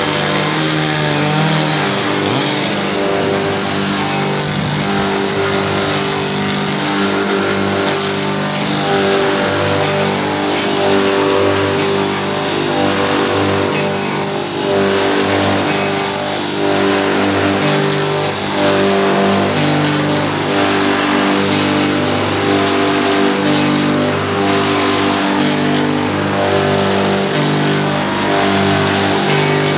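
Log-rounding machine running, its electric motors and cutter head giving a loud, steady machine hum whose pitch shifts in steps every second or two as it works a log.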